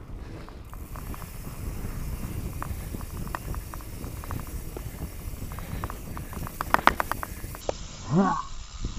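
Mountain bike riding down a rocky dirt trail: tyres rumbling over dirt and stones, with the frame and chain rattling and small clicks from the bike, heard close through a handlebar-mounted camera with wind on the microphone. About seven seconds in there is a quick cluster of sharp clacks, and a short rising squeal a little later.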